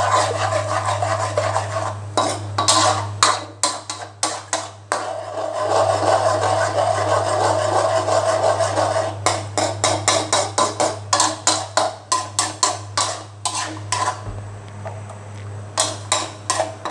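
Metal ladle scraping and knocking against a wok in quick repeated strokes as beaten eggs are stir-fried in butter, over a sizzle and a steady low hum.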